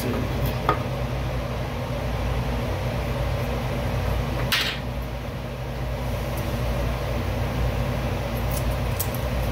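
Steady low background hum with light handling of cutting tools on a table: a couple of small clicks near the start and one short rasp about four and a half seconds in.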